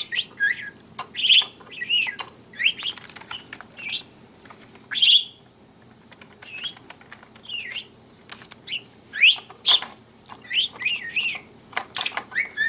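Pet budgerigar chattering: quick chirps and warbles that slide up and down in pitch, broken by sharp clicks. It goes quiet for a couple of seconds about halfway through, then starts again.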